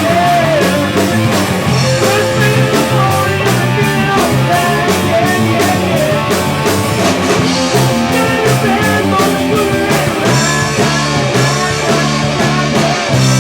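Rock music: guitar and drums with a steady beat.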